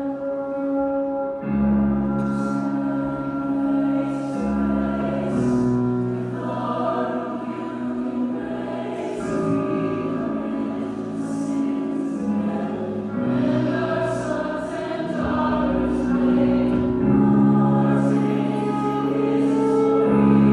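Music without lyrics: sustained choir-like chords over a low bass line that comes in about a second and a half in. A short bright hit recurs every second or so.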